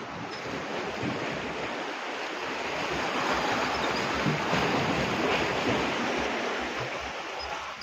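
Sea surf washing on the shore, a steady rush that swells for a few seconds and eases off again.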